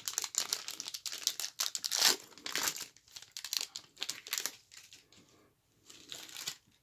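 Foil wrapper of a trading-card pack crinkling as it is peeled open and pulled off the stack of cards, loudest about two seconds in, with fainter crinkles near the end.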